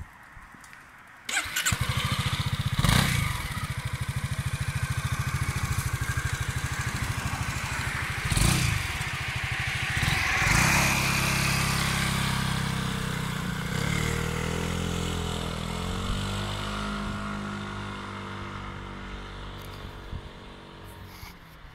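Honda Forza 250 scooter's single-cylinder four-stroke engine started about a second in, then idling steadily. Near the middle it revs up as the scooter pulls away, and its sound fades as it rides off.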